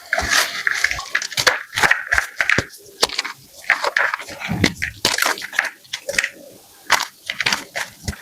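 Blocks of gym chalk being crushed: a quick, irregular run of dry crunches and cracks, several a second, with gritty crumbling between them.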